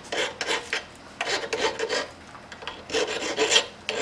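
Hand file rasping back and forth over the cut end of a steel power steering line, deburring its outside edge, in three short runs of strokes with brief pauses between them.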